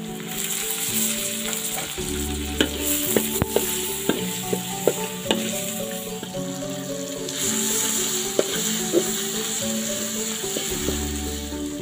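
Red chili spice paste and tomato pieces sizzling in hot oil in a large metal wok. A spatula scrapes and knocks against the pan in scattered sharp ticks as it is stirred.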